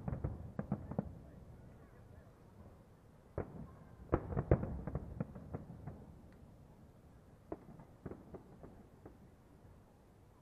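Aerial firework shells bursting in sharp bangs with rumbling tails: a quick volley at the start, a denser, louder volley about four seconds in, then a few scattered single bangs.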